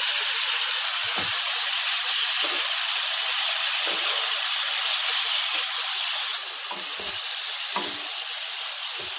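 Sliced apples sizzling in a nonstick pan of melted butter and cane sugar with walnuts, turned with a wooden spoon; a steady hiss that drops a little about six seconds in.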